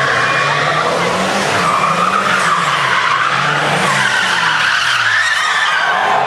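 Two Chevrolet Chevette drift cars sliding in circles, their tyres squealing continuously while the engines rev up and down again and again.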